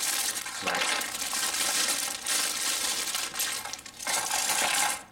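Clear plastic bag crinkling loudly as grey styrene model-kit sprues are pulled out of it and handled, with light clatter of the plastic parts; the rustle comes in several long stretches and stops abruptly near the end.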